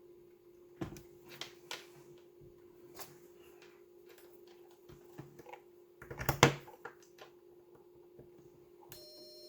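Scattered clicks and taps of oscilloscope buttons and knobs being worked, the loudest cluster about six seconds in, over a steady electronic hum. Near the end a thin, high electronic whine sets in.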